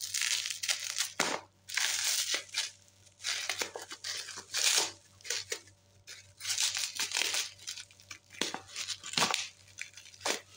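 Scissors cutting through plastic bubble wrap, the wrap rustling in irregular bursts every second or so as it is cut and handled.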